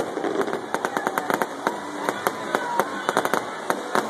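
Fireworks popping and crackling in a rapid, irregular string of sharp pops.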